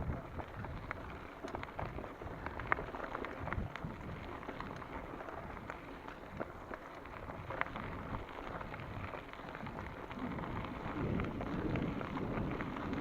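Mountain bike rolling over a dirt and gravel forest trail: the tyres crunch and crackle over loose stones while the frame rattles, with wind rumbling on the action camera's microphone.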